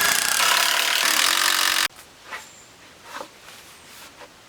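Cordless impact driver hammering a screw into pressure-treated wood, stopping suddenly about two seconds in; a few light knocks follow.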